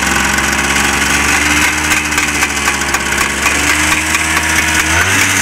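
Vintage Vespa scooter's two-stroke engine idling with a slightly uneven note. Its revs pick up a little near the end.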